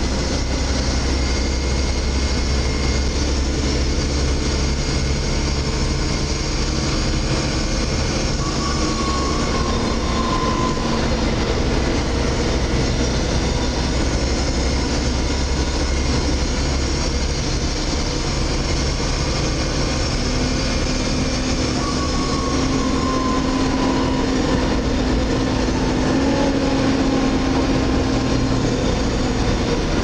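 Volvo B7TL double-decker bus under way, heard from the upper deck: steady engine and road rumble, with a whining tone that falls in pitch about nine seconds in and again about twenty-two seconds in, and a steady hum joining in from about twenty seconds in.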